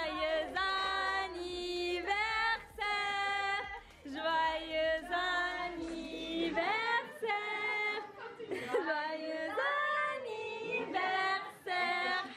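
Several voices, mostly high women's voices, singing a tune together in long held notes, phrase after phrase with short breaks.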